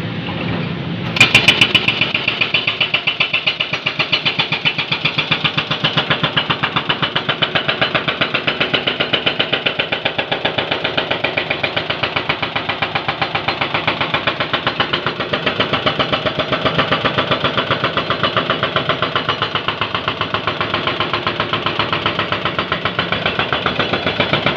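Excavator-mounted hydraulic breaker hammering in a fast, steady rhythm. It starts abruptly about a second in, loudest at the first blows, and the excavator's engine runs underneath.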